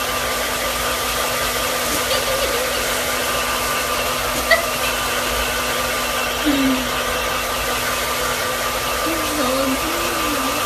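A steady whirring, rushing noise with a constant hum under it, like a small electric appliance such as a blower running.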